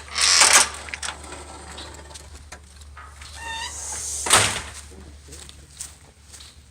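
A door, likely a sliding door, being worked: a loud scraping rush at the start and another about four seconds in, with a short squeak just before the second.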